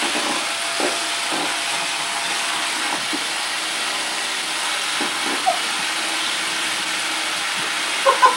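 Electric hand mixer running steadily, its beaters whipping cream in a bowl.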